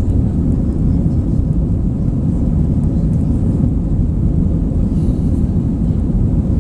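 Steady low rumble of an Airbus A320-232's IAE V2500 turbofan engines and rushing airflow, heard inside the cabin during the climb after takeoff.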